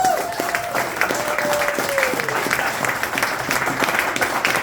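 Audience applauding, with one drawn-out cheering voice that falls away about two seconds in.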